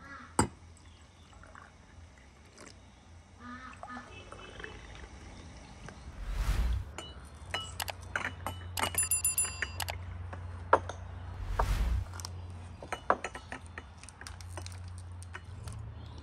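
Tea glasses, saucers and teaspoons clinking on a table, with scattered single clinks and a quick run of clinks about halfway through. Two brief low rumbles come about 6 and 12 seconds in.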